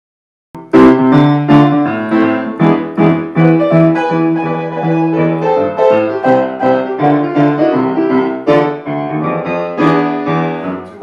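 Grand piano played solo: the opening bars of a song, chords struck with sharp attacks and left ringing. It starts about half a second in.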